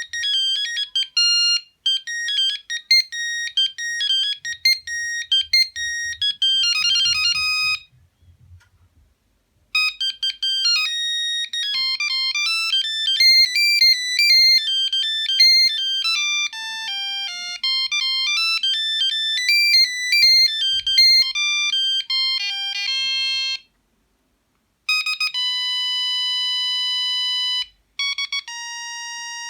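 Sony CMD-CD5 mobile phone playing its built-in ringtones one after another. It plays a fast beeping melody, then after a short pause a second longer melody. After another brief silence comes a long steady beep.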